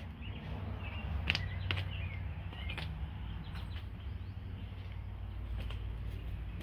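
Outdoor background noise: a steady low rumble with a few faint bird chirps and light clicks scattered through it.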